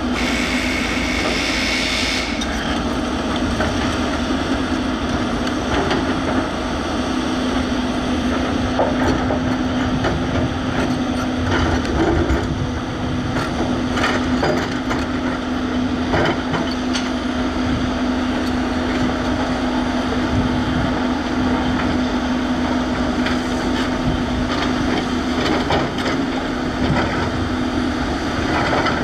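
Volvo EC210B crawler excavator working in landfill refuse: the diesel engine runs under load at a steady pitch, with scattered knocks and crunches as the bucket handles waste. A higher whine sounds for the first couple of seconds, then stops.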